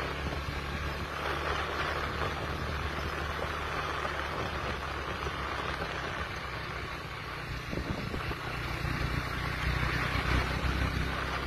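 Honda Winner X150 motorcycle's single-cylinder engine running steadily, getting a little louder over the last few seconds.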